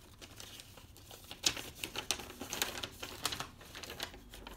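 Paper and packaging rustling and crinkling as they are handled, with irregular sharp crackles, the sharpest about a second and a half in.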